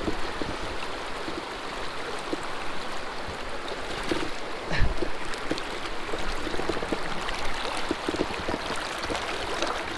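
River water rushing steadily over a stony bed, with one low thump about five seconds in.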